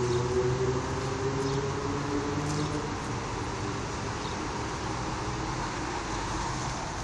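Steady hum of a motor vehicle, with a tone that slowly drops in pitch over the first few seconds, as of a vehicle going by.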